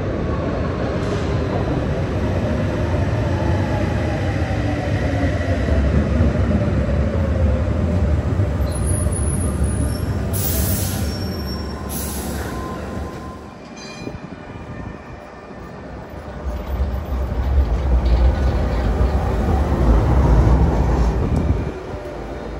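Gothenburg tram pulling into an underground station: a whine that falls slowly in pitch as it brakes over the rumble of the wheels, echoing off the station walls. Two short hisses come around the middle while it stands, then the noise builds again as it moves off.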